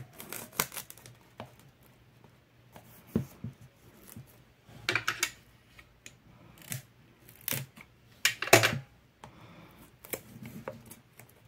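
Plastic shrink-wrap on a card-deck box being picked at with fingernails and scraped with a utility-knife blade: irregular crinkles and scratches, the loudest about eight and a half seconds in. The blade is somewhat dull and the wrap is hard to open.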